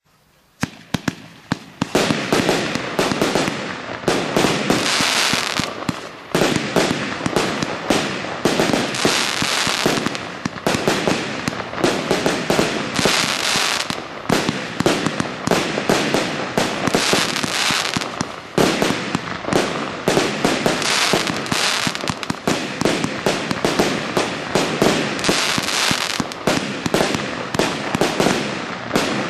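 A 100-shot firework cake firing: a few sharp single reports first, then from about two seconds in a continuous rapid barrage of shots, with the shells' peony bursts, crackle and bangs running together.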